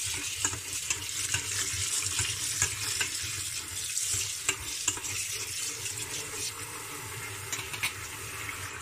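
Cold water running from a kitchen tap onto chopped mushrooms in a stainless-steel colander in a metal sink, a steady rush. A hand stirs the mushrooms under the stream, with small clicks and knocks of the pieces throughout.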